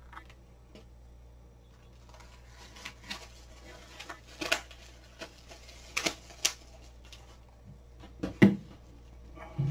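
Irregular clicks and knocks of cookware and utensils being handled, with the loudest knock about eight and a half seconds in, over a steady low hum.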